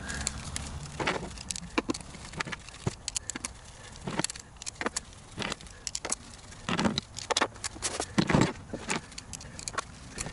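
Irregular light clicks and a few longer scrapes of a Torx screwdriver and small screws being started by hand into an engine cover.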